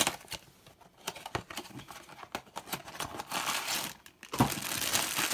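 Cardboard blind box being opened by hand, with small clicks and scrapes of the flaps, then a foil bag crinkling loudly from about four seconds in as it is pulled out of the box.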